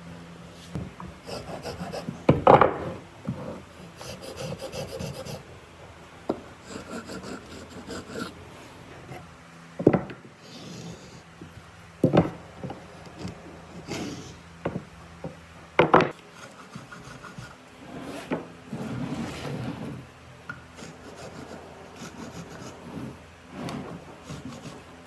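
Hand work on wood: uneven rubbing strokes against wood, broken by several sharp knocks, the loudest about two and a half seconds in and again about sixteen seconds in.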